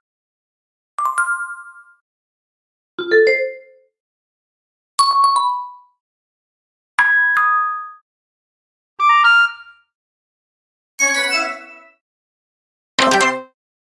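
A series of short, bright chime jingles of the kind used as positive or success notification sounds in apps and games, each one different. One plays every two seconds, seven in all, each a quick run of a few ringing tones that fades out within a second.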